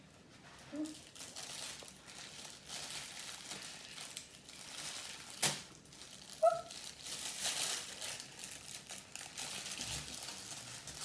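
Crinkling and rustling of food being handled with its wrapping or container, with a sharp click about halfway through.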